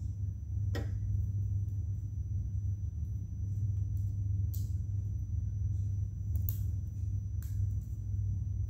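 Steady low hum with a faint high whine. A handful of short sharp clicks, about four over several seconds, fit Lego Technic plastic pieces being handled and snapped together.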